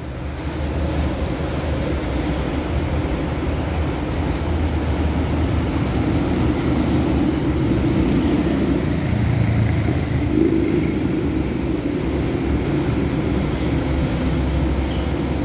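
Steady rumble of road traffic, with a brief light click about four seconds in.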